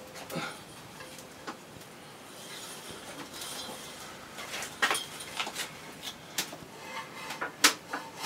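Scattered knocks, clicks and scrapes of a large bonsai pot being handled and shifted on a workbench, the loudest knocks about five and seven and a half seconds in.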